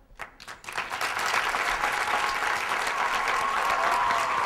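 Audience applause: a few separate claps, then within a second a dense, steady clapping of a large group.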